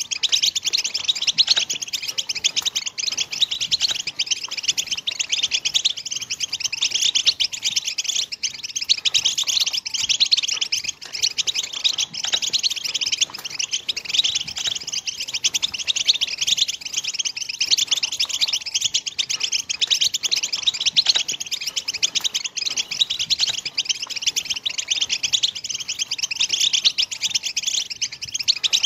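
European goldfinch song: a fast, unbroken stream of high twittering and chirps.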